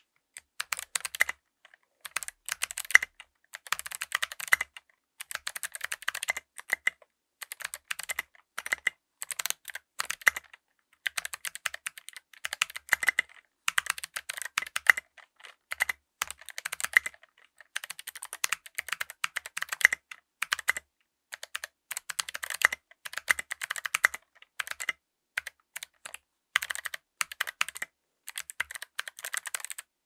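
Typing on a 60% mechanical keyboard with clicky Kailh BOX White switches and SA-profile MiTo Mitospeed keycaps: quick runs of sharp clicks broken by short pauses.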